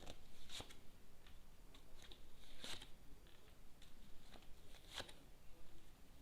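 Tarot cards being handled and laid out: a few crisp snaps, the strongest about half a second in, near the middle and near the end, with fainter ticks and rustles between.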